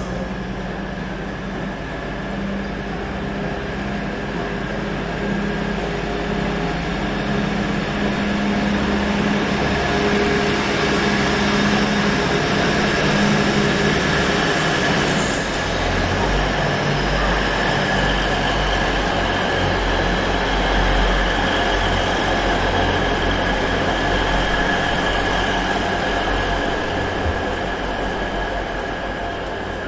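Class 180 Adelante diesel multiple unit pulling away and passing close by, its underfloor diesel engines working under power. A steady high whine runs over the engine note, and a deeper rumble comes in about halfway as the cars go by.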